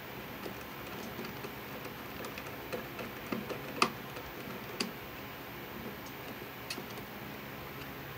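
Screwdriver turning a terminal screw on a 120-volt electrical receptacle: scattered small metal clicks and ticks, the sharpest a little under four seconds in and another about a second later.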